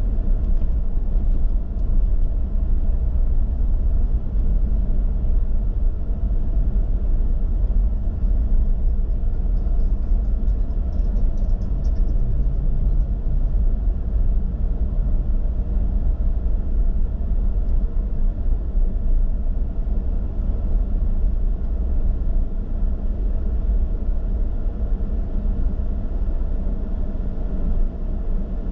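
Steady rumble of a car being driven, engine and road noise, with no sharp events.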